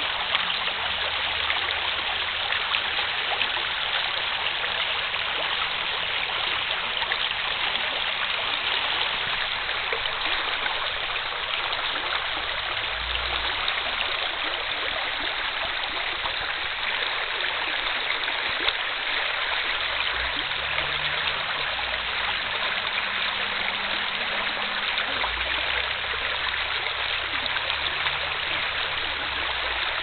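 Steady rush of a river's flowing current, an even hiss of moving water.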